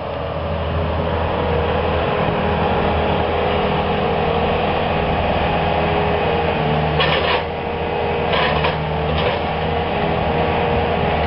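Bobcat skid-steer loader's engine running steadily, with a few short rattling bursts about seven, eight and a half and nine seconds in.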